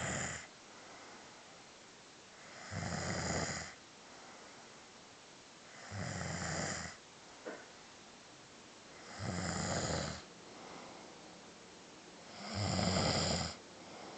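A sleeping person snoring: one snore about every three seconds, each lasting about a second, four full snores plus the tail of one at the start. There is a brief click between the second and third.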